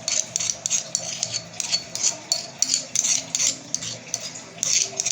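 A metal spoon scraping and clinking against a small dish, stirring crushed ginger into ground black pepper, in quick irregular strokes about two or three a second.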